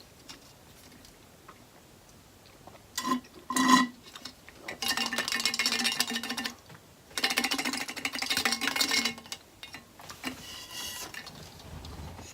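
Eating and food-handling noises close to the microphone: two short clinks a little after three seconds in, then two stretches of dense crackling, each about two seconds long.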